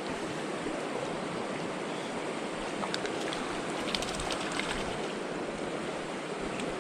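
Small mountain stream rushing steadily, with a few faint clicks about halfway through.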